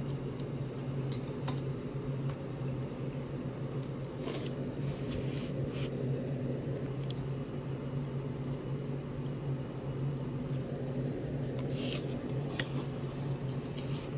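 A steady low mechanical hum, like a kitchen fan, with a dozen or so short clicks and scrapes of kitchen handling scattered over it, bunched around the middle and near the end.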